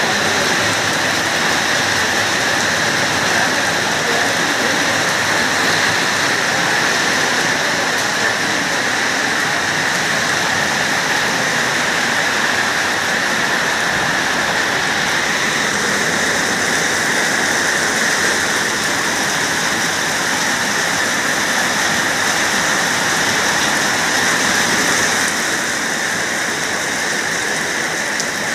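Heavy rain pouring down steadily, an even dense hiss that eases slightly near the end.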